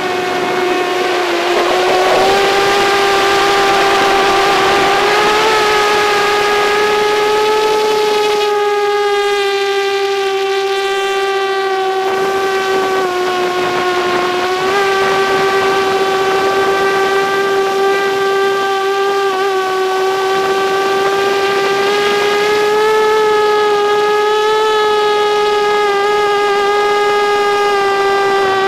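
Motors and propellers of an FPV drone whining at a steady pitch, wavering slightly up and down as the throttle shifts.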